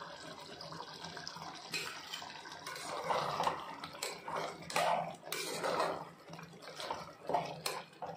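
A metal spoon stirring thick, wet mutton-and-tomato gravy in an aluminium pressure cooker: irregular squelching swishes, with a few sharp clinks of the spoon against the pot.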